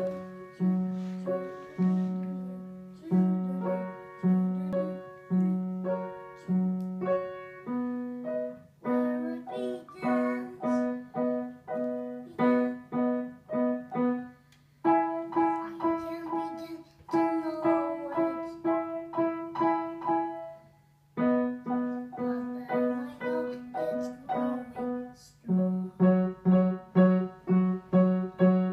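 A young child playing a grand piano solo: a steady run of repeated chords over a pulsing low note, broken by a couple of brief pauses midway.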